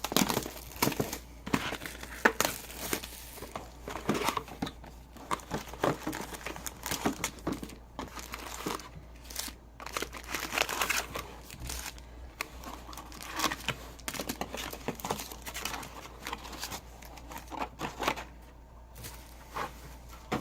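Crinkling and tearing of trading-card packaging as a retail box of basketball card packs is opened, in irregular handling noises that come and go.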